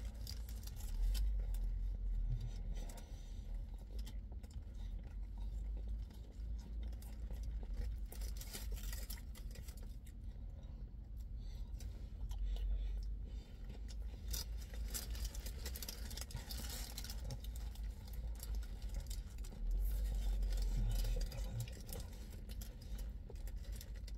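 A man chewing a burger, with its paper wrapper crinkling and rustling in irregular small clicks and scrapes. Bouts of low rumble come and go.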